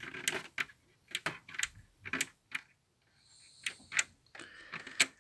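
Irregular series of small sharp clicks and light taps, about a dozen, from a toy washing machine being handled.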